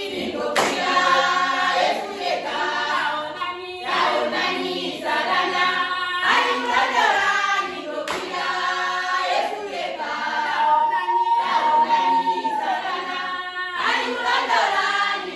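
A group of women singing a worship song a cappella, with hand clapping.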